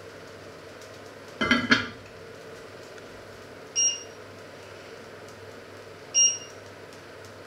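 Heavy enamelled cast-iron lid clattering down onto its cast-iron casserole about a second and a half in. Then two short electronic beeps from the glass-top cooker, a couple of seconds apart.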